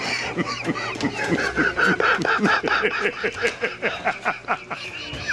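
Wheezing, honking laughter in rapid pulses, about four a second, with a high squeaky note in the middle.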